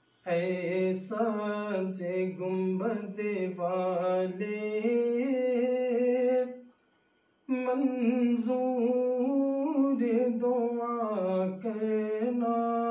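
A man singing a naat unaccompanied, in long, drawn-out melodic phrases, breaking off for about a second midway before carrying on.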